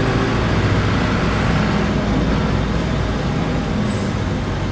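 City bus's diesel engine running steadily under way, heard from inside the passenger cabin, with a low hum and road noise.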